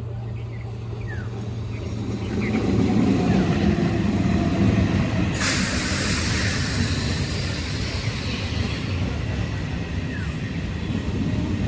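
Local train running through the station: a low rumble of wheels on track builds up about two seconds in. A sudden loud hiss of air cuts in about halfway and fades over a second or two, over the steady rumble.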